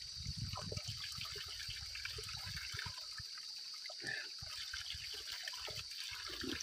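A thin trickle of spring water running off a rock seep and splashing into cupped hands, with a steady high-pitched hiss behind it.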